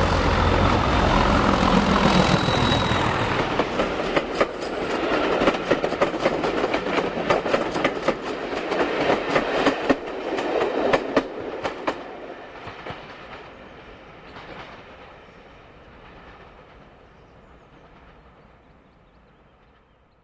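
Class 31 diesel locomotive passing with its train: engine noise at first, then wheels clicking quickly over rail joints for several seconds, the whole sound fading away into the distance until it is gone near the end.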